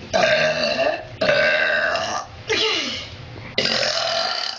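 Women belching: about four long, loud burps one after another, each lasting about a second with short breaks between them.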